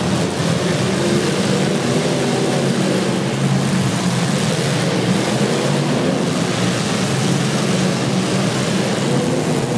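Demolition derby car engines running hard together: a loud, steady engine drone with a dense wash of noise over it.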